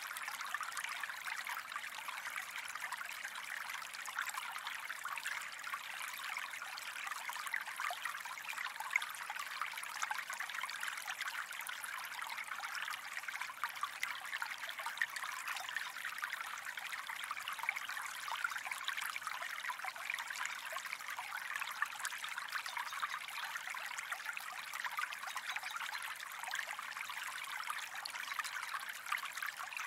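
A gentle stream flowing steadily: a continuous light trickle and splash of water, with little deep rushing.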